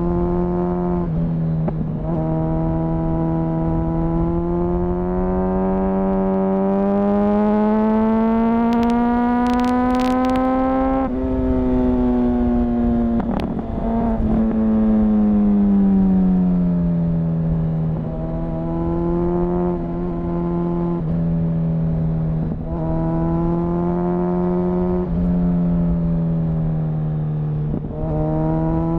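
2004 Honda CBR1000RR Fireblade's inline-four engine, restricted to 35 kW, heard onboard. Its pitch climbs steadily for about ten seconds as the bike accelerates, then falls away as the throttle closes. It then runs at a fairly even pitch with brief dips and rises, with a few short clicks near the middle.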